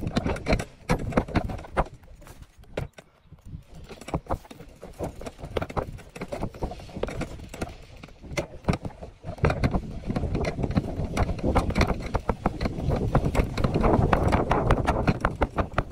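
Bicycle rattling over a bumpy dirt track: irregular clattering knocks from the mesh basket and frame, with a heavier low rumble from about ten seconds in.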